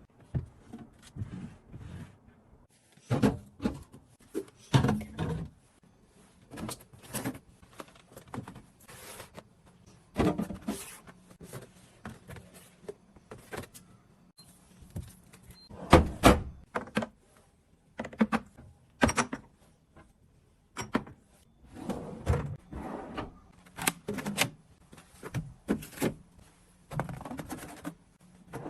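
Groceries being put away into a refrigerator: irregular knocks, clunks and scrapes of containers and packages set onto shelves and into drawers.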